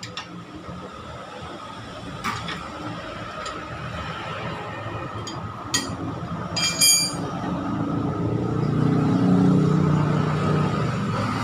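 Metal tools and motorcycle parts clinking as the mechanic works on the engine mounting, with two sharp, ringing metallic clinks about six and seven seconds in. A low background rumble swells toward the end.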